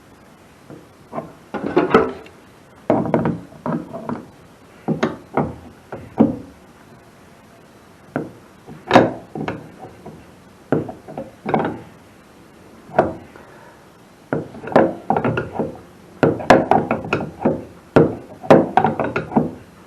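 A wrench knocking and clanking against a threaded fitting as it is worked loose from a fuel tank, in irregular clusters of sharp knocks that are densest near the end.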